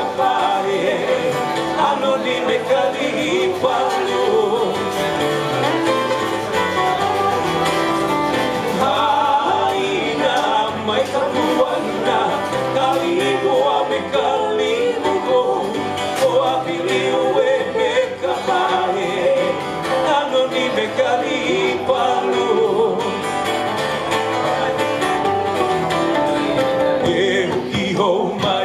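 Live small acoustic band playing a song: acoustic guitar and a second guitar with bass guitar, and a man singing.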